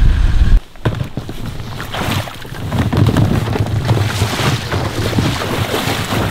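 Footsteps wading through shallow marsh water in waders, uneven splashing and sloshing strokes with clothing rustle and wind buffeting the microphone. The first half-second is a vehicle engine idling, cut off abruptly.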